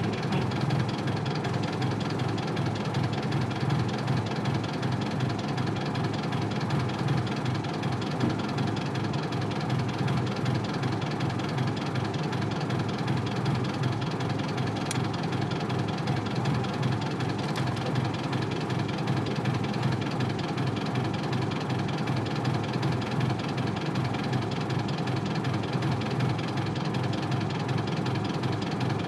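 Isuzu Cubic KC-LV380L city bus's 8PE1 V8 diesel engine running steadily, a low, even engine sound with no change in revs.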